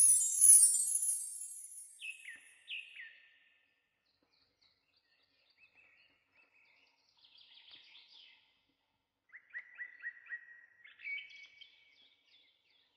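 Songbirds singing: a bright, high, falling shimmer of notes at the very start, then two clear downward-sliding whistles, scattered faint chirps, and a short trill of quick repeated notes near the end.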